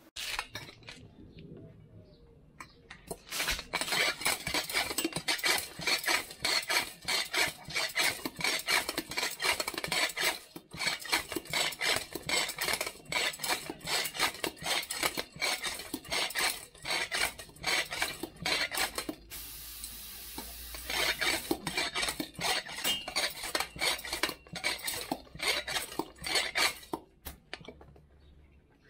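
Continuous clatter and scraping of small hard objects, many knocks a second, with a short break about nineteen seconds in.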